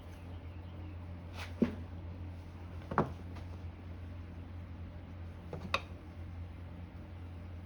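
Four short sharp clicks and knocks of hand tools and small metal parts while a vintage electric motor is being taken apart, over a steady low hum.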